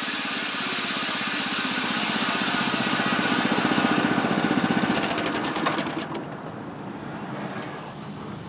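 Homemade bandsaw sawmill's small gasoline engine running hard, its blade cutting through a green sycamore log, then dropping back to a quieter idle about six seconds in.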